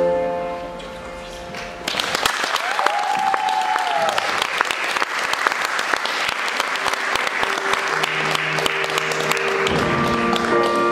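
Audience applauding, breaking out suddenly about two seconds in as the song's backing music fades on its last chord. Music comes back in under the clapping near the end.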